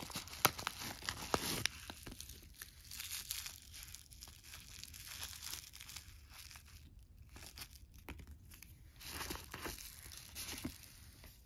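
A paper mailer envelope and a small clear plastic bag crinkling, rustling and tearing as hands pull them open. The crackling is densest in the first couple of seconds and comes back in a cluster about nine seconds in.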